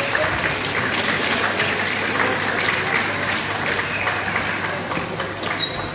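Spectators clapping in an echoing sports hall, a steady patter of many hands after a point ends.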